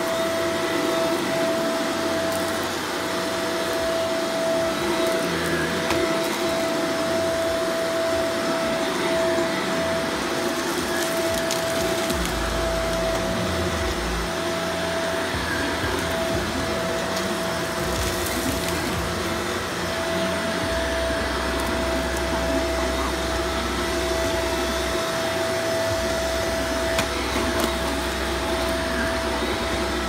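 Shark upright vacuum cleaner running while pushed back and forth over carpet: a steady motor whine over the rush of suction.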